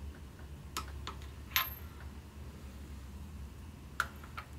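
A few short metallic clicks, the loudest about a second and a half in, from a torque wrench and socket on the cylinder head bolts of a Ford 172 diesel engine during first-stage torquing to 35 ft-lb, over a low steady hum.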